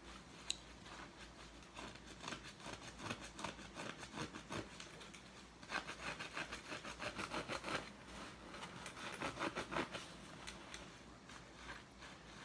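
Wet cleaning sponge loaded with Comet powder cleanser being squeezed and worked by hand. It gives quick crackling squelches that come in three spells, around two, six and nine seconds in.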